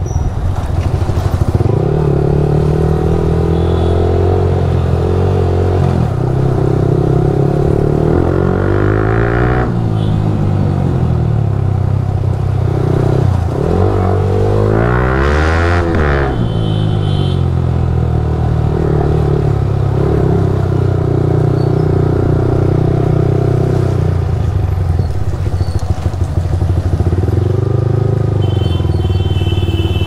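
Yamaha R15 V3's single-cylinder engine through an aftermarket Akrapovic exhaust, running while riding, its pitch climbing and falling a couple of times as the throttle is opened and closed.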